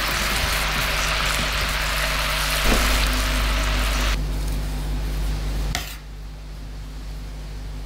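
Teriyaki sauce bubbling and sizzling hard in a frying pan around pieces of spotted mackerel as it reduces and thickens. The sizzle cuts off about four seconds in, and a single sharp click follows near the end.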